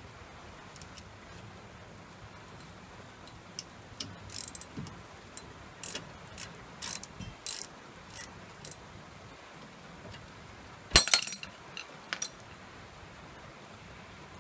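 Ratchet wrench clicking in short runs as brake caliper bolts are backed out. About eleven seconds in come a few sharp metallic clanks, the loudest sounds, one leaving a brief high ring.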